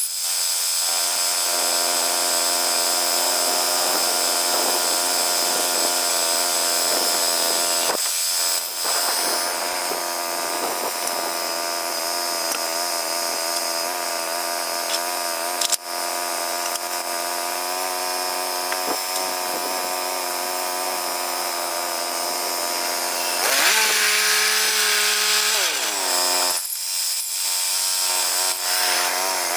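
Woodland Mills HM122 portable bandsaw mill running, its engine and band blade sawing a red cedar log with a steady engine note and a high whine. Near the end the engine note shifts, falling in pitch for a moment, then it settles into a steady, lower run.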